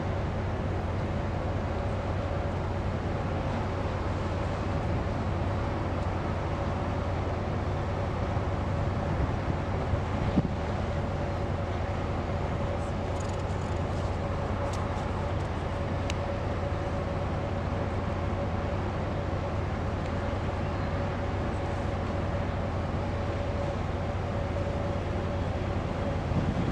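Steady low machinery drone with a constant mid-pitched hum running through it, unchanging throughout, with a few faint clicks around the middle.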